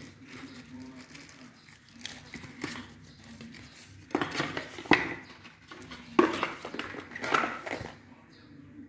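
Unboxing packaging being handled: rustling and crinkling of plastic-wrapped parts and cardboard, with a few sharp knocks and clicks. The handling is light at first and gets busier about four seconds in, then settles near the end.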